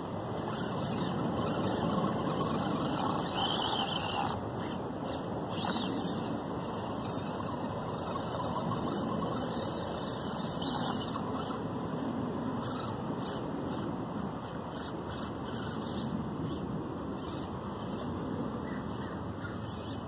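Axial SCX24 Deadbolt micro crawler's 88-turn electric motor and worm-gear axles whining as it crawls over rocks. The sound runs without a break and swells a little a few seconds in and again about halfway through.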